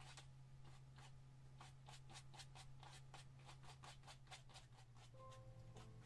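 Paintbrush bristles dabbing and scratching oil paint onto a canvas in quick short strokes, about four a second, over a low steady hum. The strokes thin out after about four and a half seconds.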